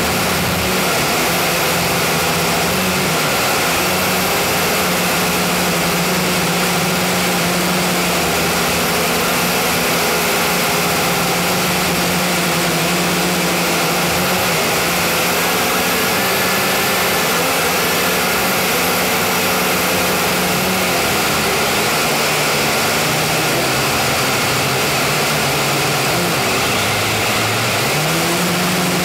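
A JJRC H29G quadcopter's motors and propellers whirring loudly, picked up by its own onboard camera microphone. The hum wavers up and down in pitch as the motor speeds change in flight, dipping low near the end and climbing back.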